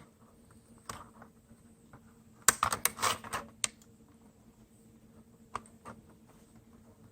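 Irregular plastic and metal clicks and knocks from a part being worked loose by hand inside a Dell Optiplex 9020 small-form-factor desktop case. There is one click about a second in, a quick cluster around the middle, and a couple more later.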